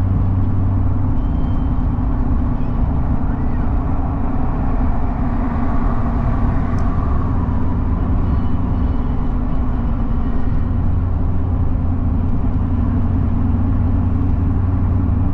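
Car driving, with a steady drone of road and engine noise and a low hum that weakens for a few seconds and then returns.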